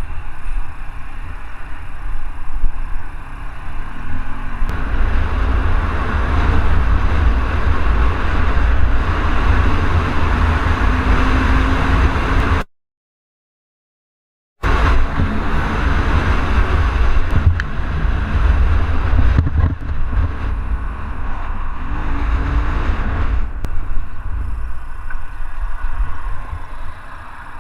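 Wind buffeting a helmet camera's microphone over a motorcycle engine while riding, broken by about two seconds of dead silence near the middle.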